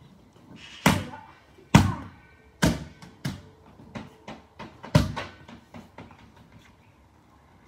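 A large clear inflatable ball bouncing hard on a tiled courtyard floor: about five loud slaps roughly a second apart, with lighter taps between and after them.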